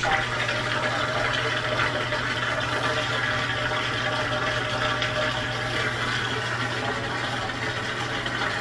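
GE top-loading washer's drain pump running steadily, a constant electric motor hum under the rush of water being pumped out of the tub: the pump is working and draining the washer.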